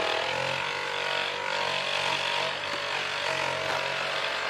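Small electric bench polishing machine running steadily, its cloth buffing wheel spinning with a constant hum while an akar bahar coral bangle is held against it and polished with compound.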